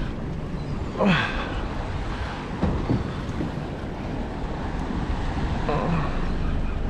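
Wind buffeting the microphone over choppy open water, with a short falling squeal about a second in.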